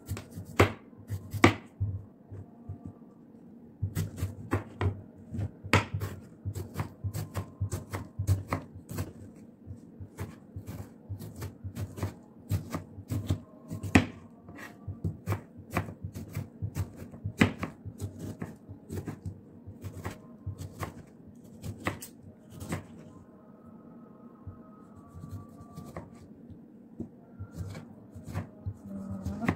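Kitchen knife slicing a tomato on a plastic cutting board: irregular sharp knocks of the blade striking the board, sometimes several a second, with short pauses between cuts.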